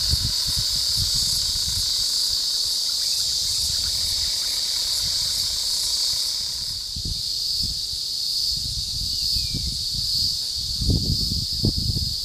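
Steady, shrill insect chorus of cicadas or crickets in the surrounding scrub, unbroken throughout, over an uneven low rumble that swells near the end.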